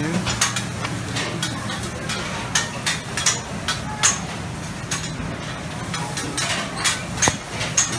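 Busy buffet restaurant ambience: steady background noise of the room with irregular clinks and clatters of dishes and serving utensils.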